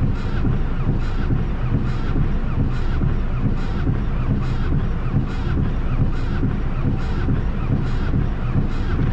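Car windshield wipers sweeping over rain-soaked glass with a repeated squeak about once a second, over steady heavy rain on the car.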